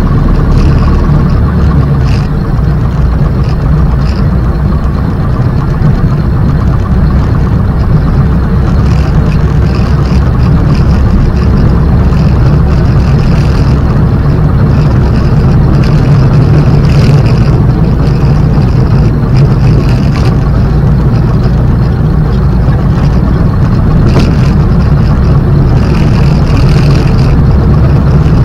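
Light aircraft's engine running steadily at low power, heard loud from inside the closed cockpit canopy.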